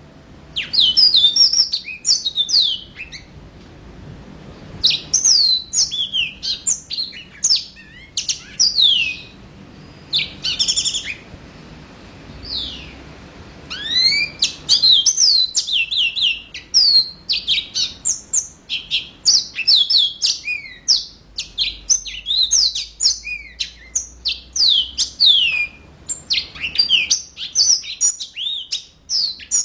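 Yellow-fronted canary singing its full song: rapid runs of quick, down-slurred whistled notes in bursts, with a couple of short pauses.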